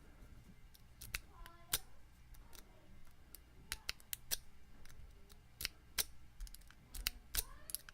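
Sharp metallic clicks and taps at irregular intervals from a half-diamond lock pick being worked and zipped across the pins of an old Master Lock No. 3 padlock, with a few brief faint metallic rings.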